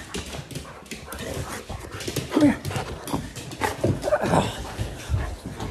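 Huskies whining and vocalizing in excitement at greeting their returning owner: several short calls that bend in pitch, amid scattered knocks and rustling.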